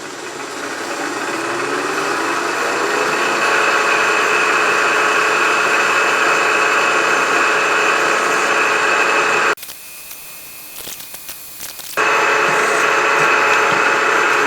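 Milling machine spindle spinning up over the first few seconds, the pitch climbing, then running steadily with a high whine. About two-thirds of the way through the sound drops abruptly to a quieter level for a couple of seconds, then returns just as abruptly.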